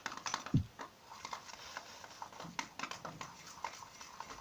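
A bowl of cold shampoo and borax-water mixture being handled and checked: irregular light clicks and taps, with a soft low thump about half a second in.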